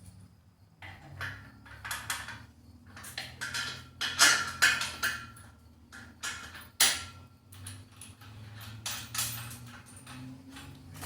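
Irregular metal clanks, scrapes and rattles of steel power-rack parts and bolts being handled and fitted together, with a brief metallic ring midway and a sharp clank near the middle.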